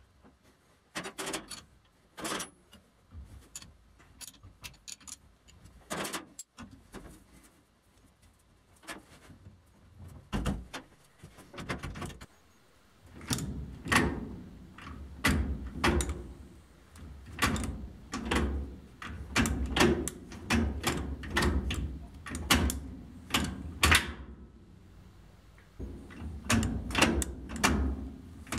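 Irregular metallic clicks, clanks and knocks, as of metal parts and tools being handled and fitted. A low steady hum joins them about halfway through.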